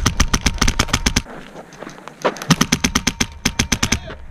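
Airsoft rifle firing on full auto in two rapid bursts: one of just over a second, then after a short pause another of about a second and a half.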